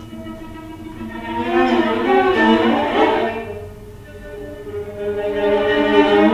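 Solo viola bowed in long notes that swell and fade in waves: soft at first, loudest about three seconds in, dropping away, then building again toward the end.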